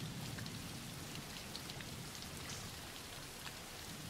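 Steady rain falling, with faint scattered drop ticks: a rain background track.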